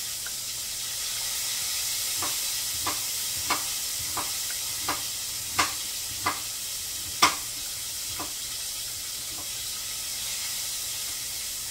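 Whiting fillets frying in hot oil with a steady sizzle, under a knife chopping onion on a wooden cutting board: about ten sharp knocks at uneven intervals from about two seconds in to about eight seconds in, the loudest near the end of the run.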